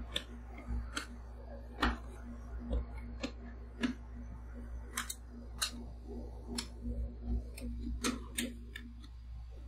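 Metal spatula edges tapping and scraping against a chilled stainless-steel ice-cream-roll pan as they score lines into a frozen sheet of blueberry whipped-cream ice cream. The sharp clicks come irregularly, about one a second. A faint steady hum underneath cuts out near the end.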